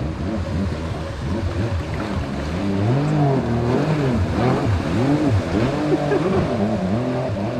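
Stand-up jet ski engine revving up and down again and again, its pitch rising and falling in quick arches, over a steady rushing hiss.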